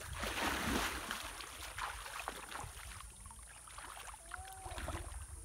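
Pond water splashing and sloshing as a person wades in, loudest about half a second in, followed by smaller splashes and drips.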